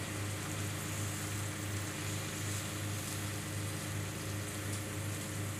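A steady low hum, pulsing evenly, is the loudest sound. Under it is a faint sizzle of grated bottle gourd halwa frying in ghee as it is stirred in a non-stick pan.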